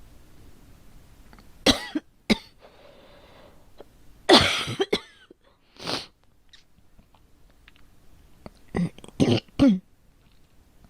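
A girl coughing in bouts: two short coughs, then a hard cough and another about two seconds later, and a quick run of three or four coughs near the end.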